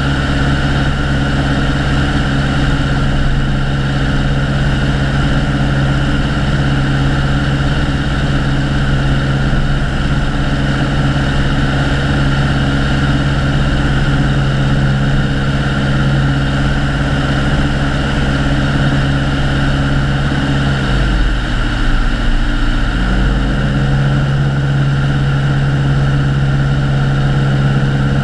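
Piper Colt's four-cylinder Lycoming O-235 engine and propeller running steadily in flight, heard from outside the cabin with air rushing past. About three-quarters of the way through, the engine note dips briefly in pitch and then comes back up to its cruising tone.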